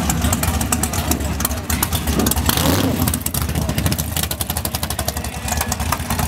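Front-engine dragster's engine running with a rapid, choppy exhaust beat as the car rolls slowly, rising briefly in pitch around the middle.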